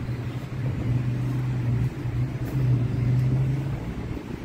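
A steady low mechanical hum, like a motor running, fading near the end.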